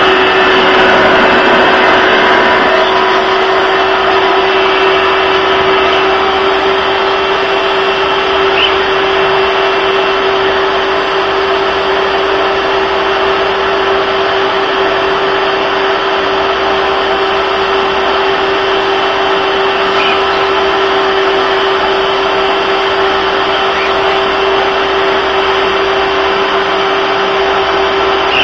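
Household vacuum cleaner running steadily, a continuous rushing hiss over a constant motor hum.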